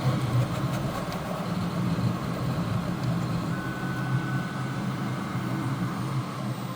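3D printer running: a steady whirring hum of its fans and motors, with a thin high tone held for about two seconds midway.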